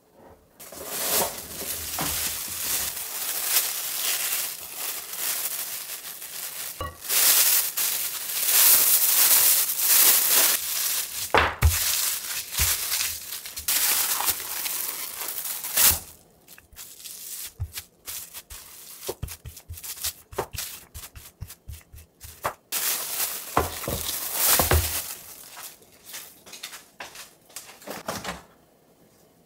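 Clear plastic cling film rustling and crinkling as it is laid over and pressed around soft cookie dough, with hands patting and slapping the dough flat through the wrap. Dense crinkling through the first half, then scattered rustles and pats that stop near the end.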